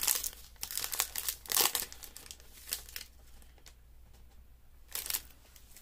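Wrapper of a Topps 2021 Series 1 baseball card pack crinkling as it is handled and torn open. The crackling is densest in the first two seconds, then comes in a few single crackles with a lull between them.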